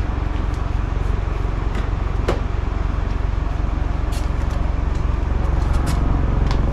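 Scattered light clicks and knocks of a Nissan Patrol Y62 headlight assembly being worked out of the front end, over a steady low rumble.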